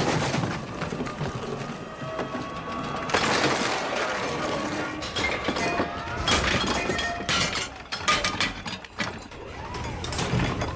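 Film sound effects: a string of clattering knocks and crashes with mechanical rattling, including a noisy crash a few seconds in and a dense cluster of impacts past the middle.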